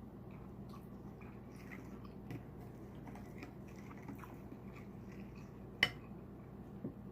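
A person chewing and smacking on buttered seafood close to the microphone, with faint wet mouth clicks scattered throughout and one sharper click about six seconds in.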